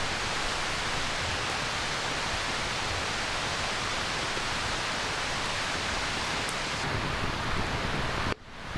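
Steady rain falling, an even rushing hiss with no separate drops standing out, cut off suddenly near the end.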